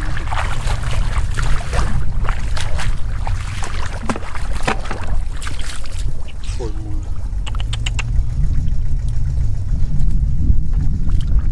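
Splashing and sloshing of hands groping through shallow muddy water to catch fish, with scattered sharp splashes and crackles over a steady low rumble of wind on the microphone.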